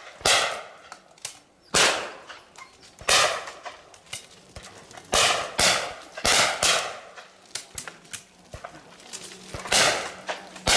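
Shotguns firing at clay targets: about seven loud shots at irregular intervals, each ringing out over the hillside, two of them close together as a quick pair, with fainter shots in between.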